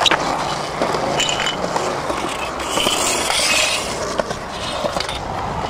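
Skateboard wheels rolling on smooth concrete, with a sharp knock of the board near the start.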